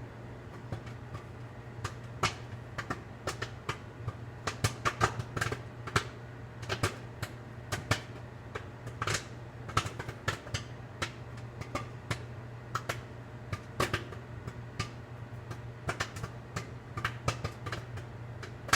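Bag of microwave popcorn popping inside a running microwave oven: irregular sharp pops, several a second, over the oven's steady hum.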